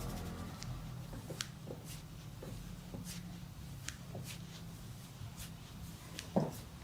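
Hands massaging the head and back: soft rubbing with scattered light ticks of skin and hair, and one short dull thud near the end.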